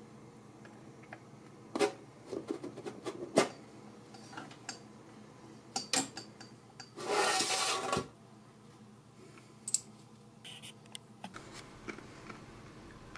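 Hands handling a small sheet-metal miniature griddle: scattered light taps and clicks on the metal, then a rubbing scrape lasting about a second around seven seconds in.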